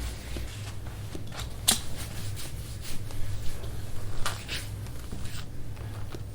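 Irregular rubbing and scraping of hands or a tool on skin during soft-tissue work on a back, with a few sharper clicks about two and four seconds in, over a steady low hum.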